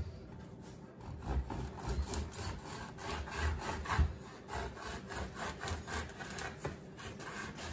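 Knife sawing back and forth through a crusty loaf of Italian bread, splitting it lengthwise: a run of short scraping strokes with a few dull knocks.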